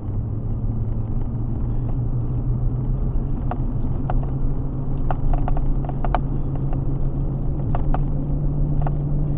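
Steady engine and road hum heard from inside a vehicle's cabin while driving slowly in heavy highway traffic, the engine note rising slightly about three seconds in. A few light, scattered ticks sound through the second half.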